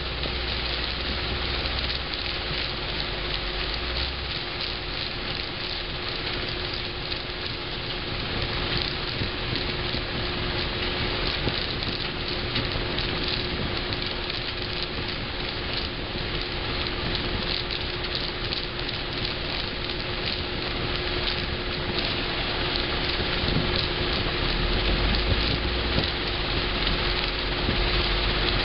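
Terex Finlay 694 mobile screening plant running with a steady hum, under a dense rattling hiss of soil and stones pouring from a loader bucket onto its vibrating grizzly. A deeper rumble comes in during the first few seconds and again near the end.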